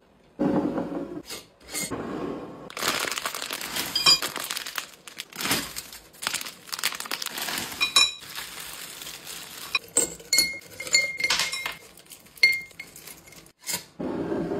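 Glass mason jars clinking, and cellophane-wrapped hard sweets (mint humbugs) crinkling and clattering as they are poured from their plastic bag and dropped into a glass jar. Several sharp clinks carry a brief glassy ring.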